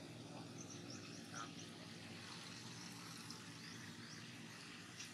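Faint outdoor background with scattered short, high chirps every second or so.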